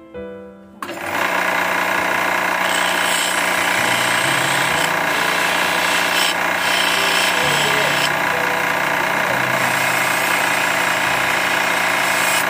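Grinding wheel running with a steel chisel pressed against it, a loud steady hiss of steel on the stone over the hum of the drive. It starts abruptly about a second in.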